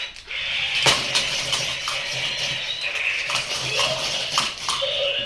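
Remote-control toy boxing robots fighting: their small motors whir steadily, with several sharp plastic clacks as the robots land hits.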